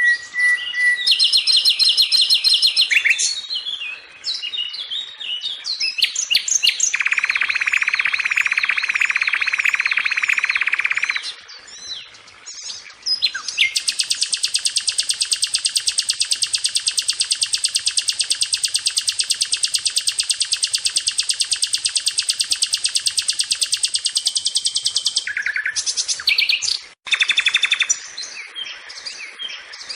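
Sikatan (flycatcher) singing a varied, chattering song of quick high phrases. It includes a rapid trill a few seconds in and a long, very fast high trill of about ten seconds in the middle.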